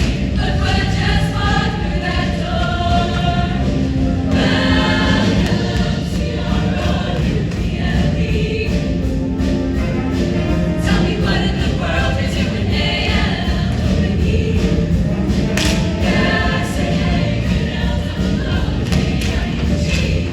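Show choir singing in full voice over loud accompaniment with a heavy, thumping beat.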